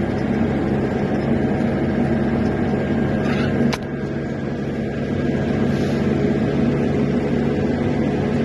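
An engine running steadily with an even low hum, and a single short click about four seconds in.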